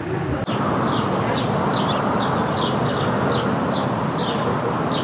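A small bird repeating a short high chirp about twice a second over a steady rushing noise like wind.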